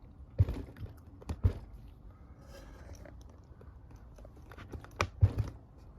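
Master Lock 7050 padlock being handled and set into a small vise, giving a few sharp metal clicks and knocks: two or three in the first second and a half, and a quick cluster of three near the end.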